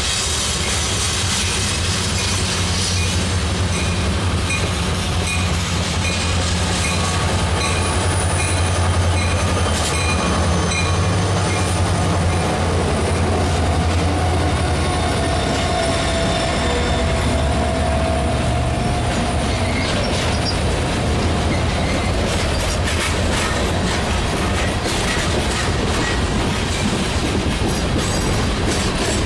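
A diesel-hauled freight train passing close by: the locomotives, a CSX leader and a Lake State Railway SD50, rumble past for roughly the first half, then the freight cars roll by with wheel clatter and a brief wheel squeal.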